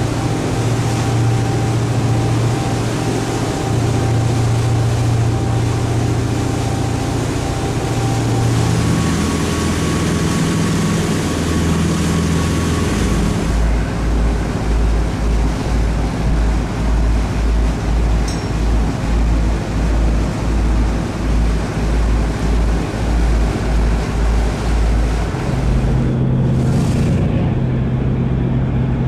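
Motorboat engine running with the wash of water and wind, its note shifting a few times. Through the middle there is a low pulsing about one and a half times a second.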